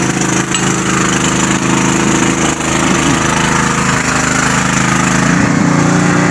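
Small portable petrol generator running steadily, powering an arc welder; its note shifts slightly about five seconds in.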